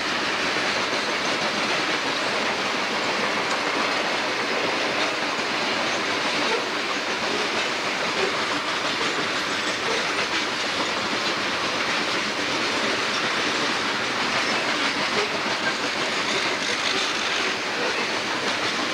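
A long string of CSX coal hopper cars rolling past: a steady, unbroken rush of steel wheels on the rail.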